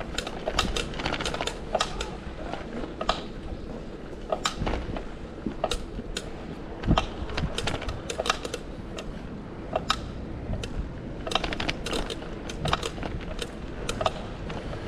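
Sharp, irregular clicks and taps, several a second, over a steady low rumble of city traffic.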